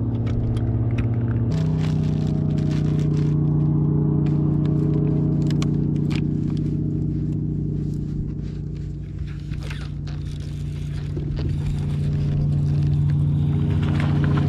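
Electric bow-mounted trolling motor running with a steady hum that steps up in pitch about a second and a half in and eases off for a few seconds in the second half. Scattered light clicks and scrapes from rod and reel handling on the boat deck sound over it.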